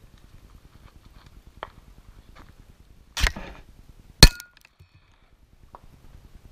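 A thick steel target plate being handled and dropped: a rough knock about three seconds in, then a sharp metallic clank with a brief ring about a second later as the plate lands flat on the ground.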